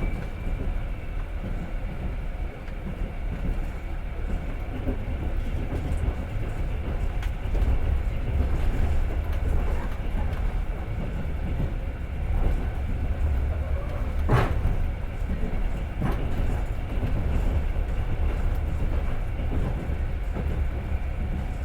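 Passenger train carriage running along the track, heard from inside: a steady low rumble of wheels on rails, with one sharp knock about two-thirds of the way through.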